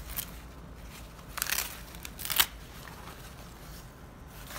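Velcro cuff tab on a PVC rain jacket sleeve being worked by hand, with the stiff plastic rustling: two short rasps about a second and a half and two and a half seconds in, the second the louder.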